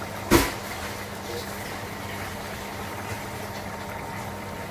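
Pot of chicken curry simmering on the stove, a steady low bubbling hiss with a faint hum under it. A single sharp knock sounds about a third of a second in.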